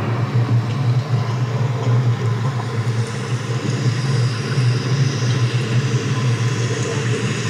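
Storm sound effect played through the show's loudspeakers: a steady, loud low rumble with a hissing, rain-like wash that grows about halfway through.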